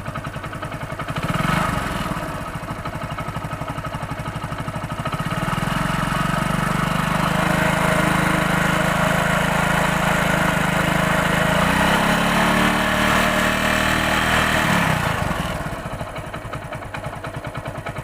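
Hero Passion Pro motorcycle's single-cylinder four-stroke engine idling, then revved up and held for several seconds, climbing higher once more before dropping back to idle near the end. It runs without any crank noise, the rattle having come from a loose magneto nut that is now tightened.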